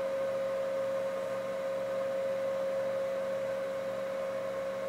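Steady single-pitch audio tone with faint hiss and hum from an Elecraft KX3 transceiver's receiver output: the unwanted-sideband signal being nulled during receive sideband-null alignment of the new roofing filter.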